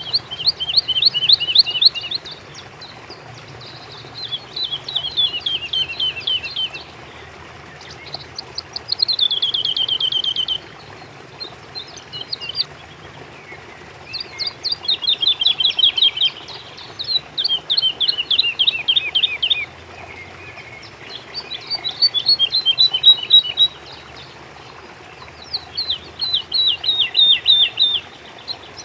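A songbird singing short, rapid phrases of quick notes that each slide down in pitch, with a new phrase every few seconds. A faint steady hiss runs underneath.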